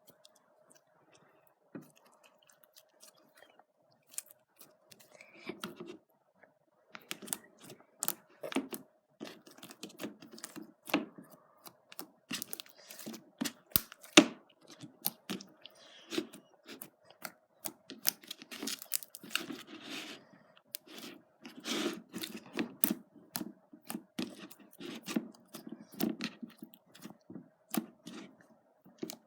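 Clear slime being squished and poked by hand, giving irregular sticky pops and clicks. They are sparse at first, then come thick and fast from about a quarter of the way in, over a faint steady hum.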